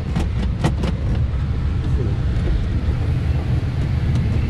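Steady rush and low rumble of airflow around a glider in flight, with a few light clicks in the first second.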